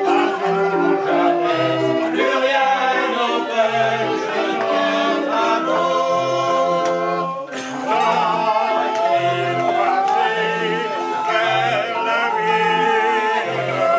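A group singing a song together, accompanied by a hand-cranked barrel organ playing from a folded punched-card book, its steady pipe notes and repeating bass carrying the tune. The music briefly drops about halfway through, then carries on.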